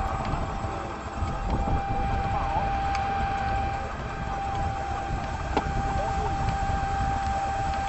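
Old machinery running with a low rumble, and a single steady high-pitched tone held over it throughout.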